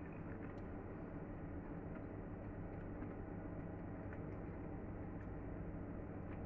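Steady low background hum of a kitchen, with a few faint light clicks.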